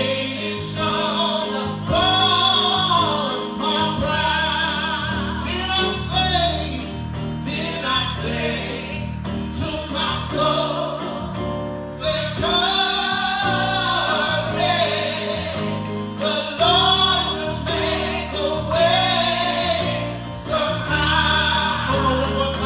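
Gospel singing with instrumental accompaniment: voices carrying a wavering melody over sustained bass chords.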